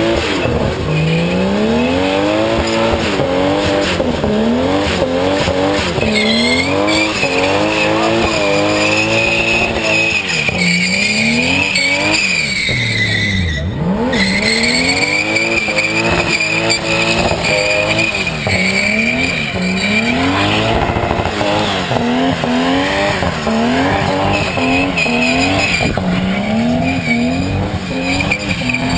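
Nissan Cefiro's RB25DET turbocharged straight-six revving hard over and over, its pitch climbing and dropping every second or two, while the rear tyres squeal steadily in a burnout.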